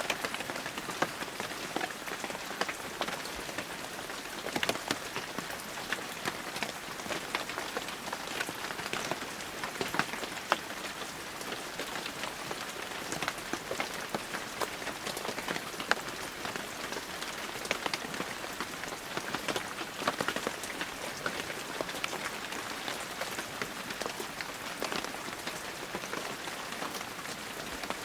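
Steady heavy rain falling, a dense even hiss thick with individual drop impacts, a few louder drops standing out here and there.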